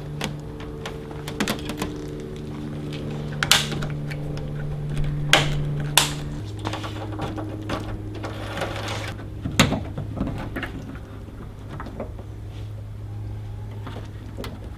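Scattered clicks and rattles of a video cable and plastic trunk-lid trim being handled, over a steady low hum that drops in pitch about six seconds in.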